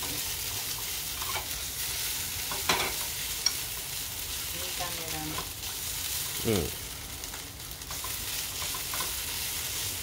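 Food sizzling in a frying pan as it is stir-fried, a steady hiss with a few light clicks and a short falling sound about six and a half seconds in.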